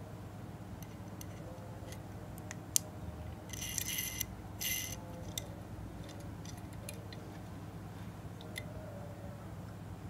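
Light clicks and taps of a Hot Wheels '55 Chevy Bel Air Gasser die-cast toy car being handled in the fingers, with two brief scrapes a few seconds in, over a faint steady hum.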